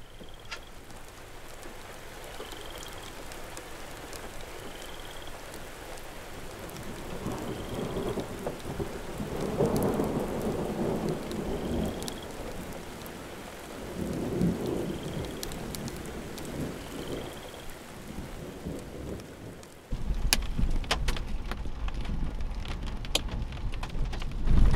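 Steady rain with thunder rumbling twice, about a third and about two-thirds of the way through, while a faint short rising chirp repeats every few seconds. About 20 s in the sound jumps to louder, closer rain with sharp ticks of drops striking, as on a car.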